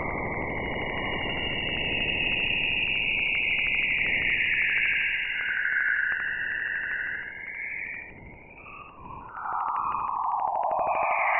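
Electronic, radio-static-like sound offered as the sound of the aurora: a steady hiss with rapid regular clicking under a wavering, whistling band of tone that sweeps down and back up. It fades for a moment about eight seconds in, then swells back louder.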